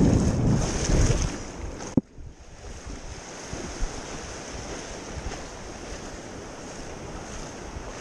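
Ocean surf with wind buffeting the microphone. About two seconds in it cuts off with a click to a quieter, steady wash of surf.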